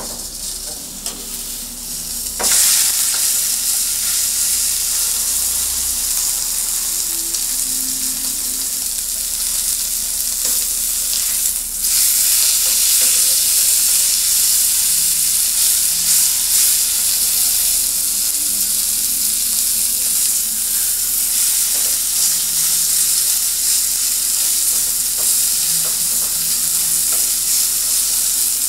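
Beef steak sizzling loudly as it sears. The dense sizzle jumps up about two and a half seconds in and holds steady, with a brief dip about twelve seconds in.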